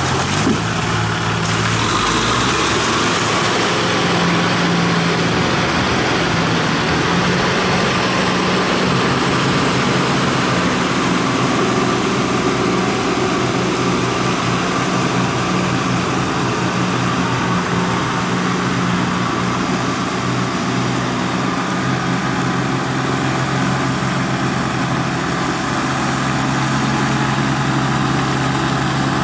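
Small diesel tractor engine running steadily as the cage-wheeled tractor works a flooded rice paddy. Its note drops slightly near the end.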